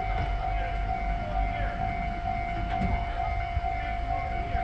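Japanese level-crossing warning bell ringing steadily in repeated electronic tones, over the low rumble of a passing local train.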